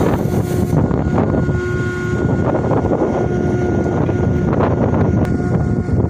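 Strong wind buffeting the microphone over the steady running of ship machinery, with a faint whine that comes and goes.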